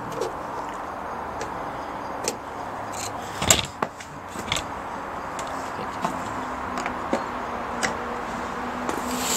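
Scattered clicks and knocks of a screwdriver and screws being worked loose on a washing machine's control panel, over a steady background hiss. The loudest knocks come about three and a half seconds in.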